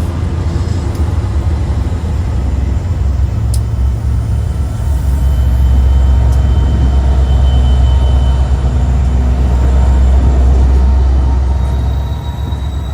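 Diesel locomotive rolling slowly past, a deep engine rumble that builds about halfway through and eases off near the end, with wind buffeting the microphone.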